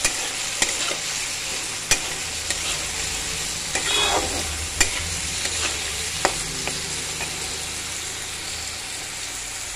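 Sliced potato and onion stalks frying in hot oil in a wok, a steady sizzle, while a metal spatula stirs them, scraping and clicking sharply against the pan several times.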